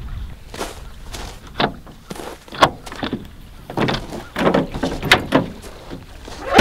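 A series of about a dozen separate knocks and clunks, irregularly spaced, ending in a heavier thump.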